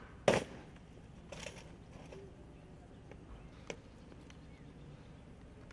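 A women police guard of honour snapping their rifles to the present-arms salute in unison: one sharp crack of hands and rifles striking, then a softer slapping rustle about a second later, and after that only a few faint ticks.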